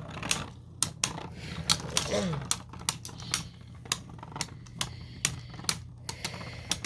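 Two spinning Beyblade tops, a 3D-printed V6 and a Zone Luinor, clashing in a stadium: a run of sharp, irregular clicks, about three a second.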